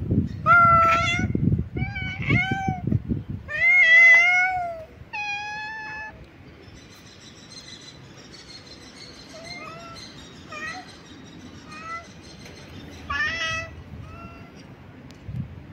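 Cats meowing: a quick string of loud meows for the first six seconds, then fainter, spaced meows with a louder call about thirteen seconds in. A low rumble sits under the first few seconds.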